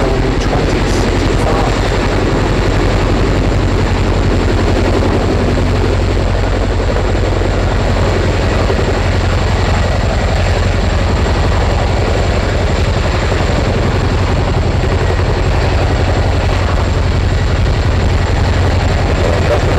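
Boeing-Vertol CH-47 Chinook twin-engine tandem-rotor helicopter hovering low, its two rotors beating in a rapid, steady, deep chop, with a thin high-pitched whine running steadily throughout.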